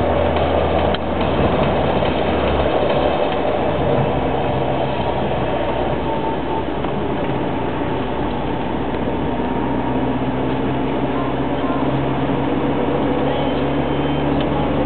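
A car driving along a town street, with steady engine and road noise heard from the cabin. The engine note shifts about three seconds in and rises slowly in the second half.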